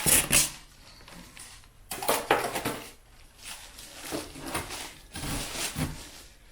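Packing foam and cardboard being handled during unboxing: rubbing and scraping in four bursts, with a few light knocks.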